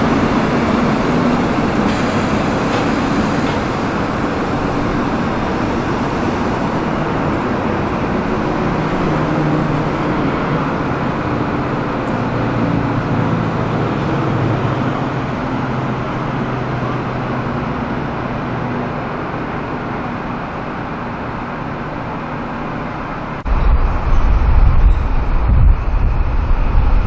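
NSW TrainLink Endeavour diesel railcar set running its engines as it pulls away along the platform, the sound slowly fading. About 23 seconds in, wind buffets the microphone with a sudden loud, low rumble.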